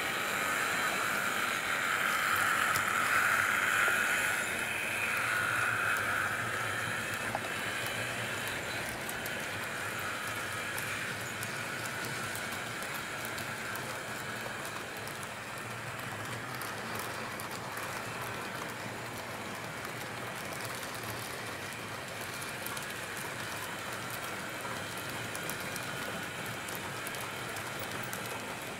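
HO scale model train running on its track: a steady rattling hiss of wheels on rails with fine, rapid clicks. It is loudest in the first several seconds, then settles a little quieter.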